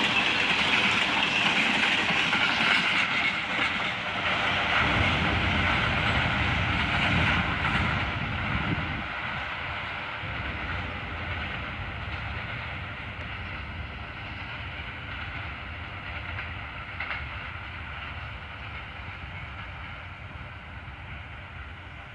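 Empty steel gondola cars of a freight train rolling past on the rails. About eight seconds in the last cars go by and the rolling noise fades steadily as the train recedes.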